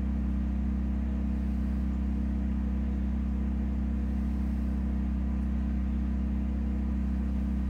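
Steady low hum of a heater running, unchanging throughout.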